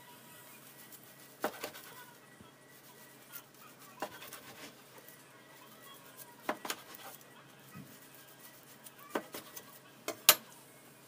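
Kitchen knife slicing through a nori-wrapped maki sushi roll, the blade knocking against the board under it with each cut, a knock every two to three seconds, the sharpest near the end.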